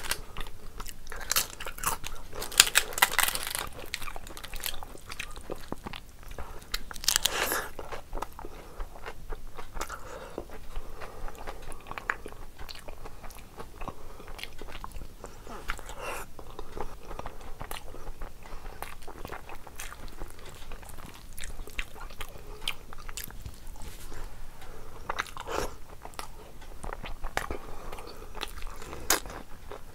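Close-up eating sounds: crisp papad crunching loudly about two to four seconds in and again around seven seconds, then steady chewing with small mouth clicks and crackles.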